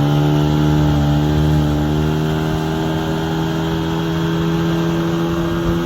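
Boat's outboard motor running under way, its pitch climbing a little in the first second or two and then holding steady at cruising speed.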